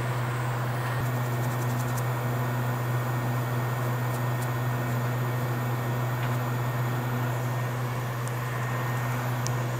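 Steady fan whir, an even rushing noise with a constant low hum beneath it.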